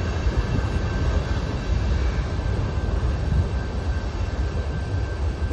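Freight train of covered hopper cars and a boxcar rolling past: a steady low rumble of wheels on the rails, with a faint steady high tone over it.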